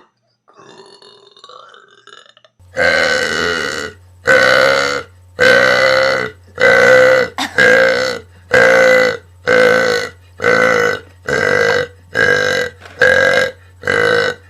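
Repeated loud, pitched burps, about a dozen in quick succession at roughly one a second, the first one longer. They begin a couple of seconds in after a faint, quiet stretch. A low steady hum runs under them.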